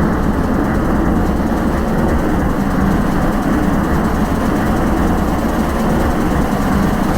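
Industrial noise music: a dense, steady low rumbling drone, heavily filtered so that almost nothing sounds above the low and middle range.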